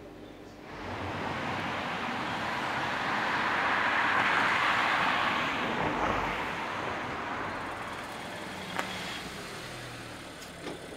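A road vehicle passing by, its rush of noise swelling to a peak about four seconds in and then fading away.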